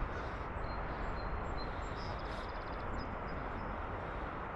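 Steady wind rumble and hiss buffeting the camera microphone.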